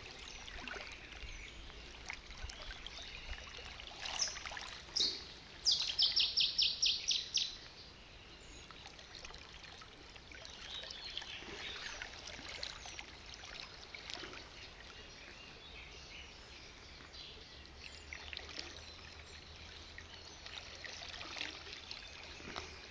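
Shallow river water trickling and lapping around a wading angler's legs, with birds chirping. About six seconds in comes a quick run of about eight sharp, high, evenly spaced notes, the loudest sound here.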